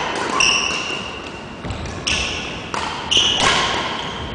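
Badminton shoes squeaking sharply on a wooden sports-hall floor several times as players push off and stop. About half a second in there is one crisp click of a racket striking the shuttlecock.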